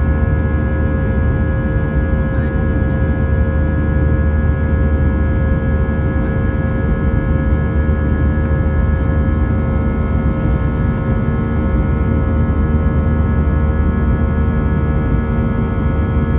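Airbus A319's turbofan engines at climb power, heard inside the cabin: a steady low drone with several steady higher whining tones over it.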